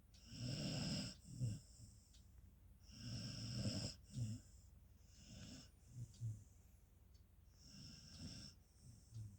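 Beagle snoring in its sleep: four snoring breaths about two and a half seconds apart, each a longer snore followed by a short one, the later ones fainter.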